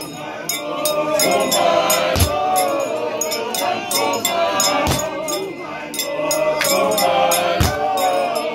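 Music: voices singing together over a steady rhythm of sharp percussive strokes, with a deep thump every few seconds.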